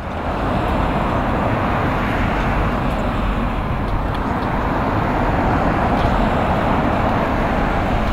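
Steady street traffic noise, an even hum with a strong low rumble and no distinct events, coming in suddenly at the very start.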